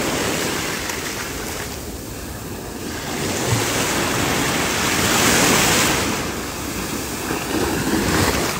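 Small ocean surf washing up the sand and foaming at the water's edge. The wash swells to its loudest about five seconds in and then ebbs away.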